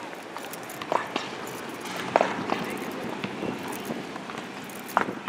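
Outdoor ambience on a concrete boardwalk: a steady background murmur with scattered, irregular sharp clicks and knocks, the loudest about two seconds in and near the end.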